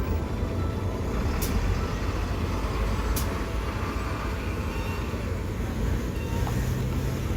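A road vehicle running with a steady low rumble of engine and road noise, with two short hisses about a second and a half and three seconds in.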